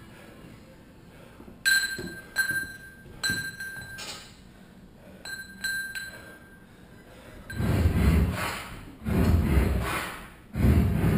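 Metal clinking from a wall-mounted steel pull-up rig and its hanging gear as a person hangs on the bar for toes-to-bar: about six sharp clinks, each with a short bright ring, in the first half. From about seven and a half seconds in come three long, loud rushing bursts, each lasting a second or more.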